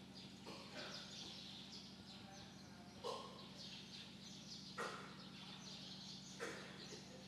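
A man blowing his nose into a cloth: three short blows about a second and a half apart, over faint bird chirping and a steady low hum.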